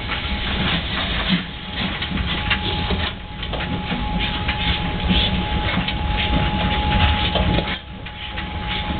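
Train hauled by steam locomotive BR 64 518 running along the rails, with steady rattling and clattering from the wheels and carriages, dipping briefly twice.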